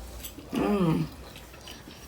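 A short murmured voice sound lasting about half a second, with faint small clicks of chewing and cutlery on the plate around it.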